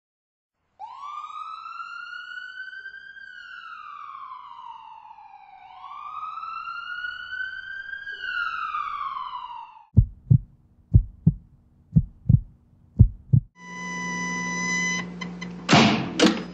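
Sound-effect sequence: a siren wails up and down twice. It is followed by a heartbeat thumping in four lub-dub pairs, about one pair a second. Then comes a steady electronic hum that ends in a loud defibrillator-style zap near the end.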